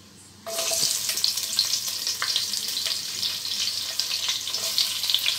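Sliced onions sizzling as they drop into hot ghee, starting suddenly about half a second in and hissing steadily while a wooden spatula stirs them through the fat.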